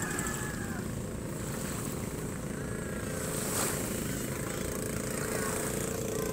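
Low steady drone of boat engines, with a steady hum that stands out more clearly from about two-thirds of the way through.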